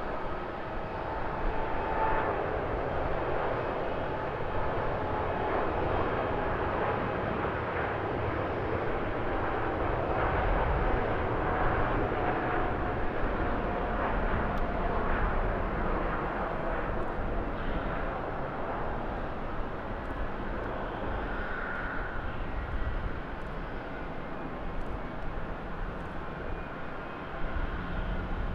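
Japan Airlines Airbus A350-900's twin Rolls-Royce Trent XWB turbofans at takeoff thrust: a steady jet roar through the takeoff roll and climb-out, with a faint whine drifting slightly lower in pitch. The roar eases somewhat near the end as the aircraft climbs away.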